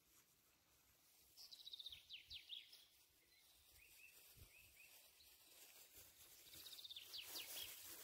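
Small songbird singing faintly in two quick phrases of rapid, high chirping notes, one about a second and a half in and another near the end.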